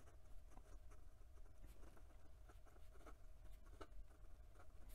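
Faint scratching of a fountain pen's Leonardo 1.1 stub steel nib on notebook paper while writing, with small irregular ticks as strokes start and stop.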